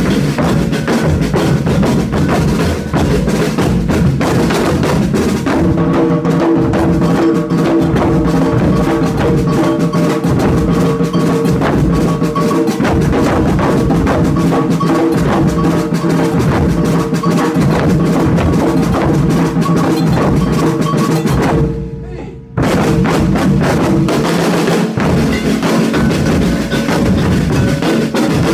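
Drum ensemble playing a dense, driving percussion rhythm with wood-block-like clacks over bass and snare drums. The whole group stops briefly about 22 seconds in, then comes straight back in.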